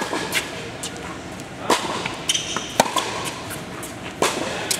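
Tennis balls struck by rackets and bouncing on a hard court in a groundstroke rally: sharp pops about every one to one and a half seconds, the first right at the start as a forehand is hit, echoing in the indoor tennis hall. A short squeak about halfway through.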